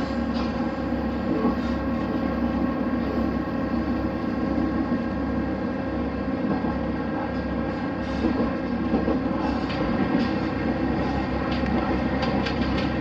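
Steady running noise of a vehicle heard from on board: a constant low engine drone with rumble and hiss.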